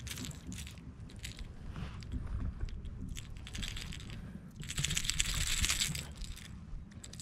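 Light metallic clicking and rattling of a jerkbait's hooks and split rings as a hooked striped bass shakes on them, with a denser burst of rattling lasting over a second, about five seconds in.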